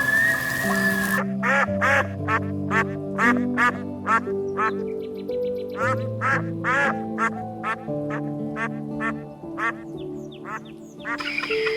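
Duck quacking in a long series of short quacks, about two or three a second, over slow background music. The quacks start about a second in and stop shortly before the end.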